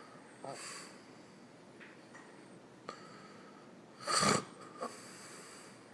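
Snoring of a sleeping man and a baby: a few short snorting breaths, the loudest snort about four seconds in.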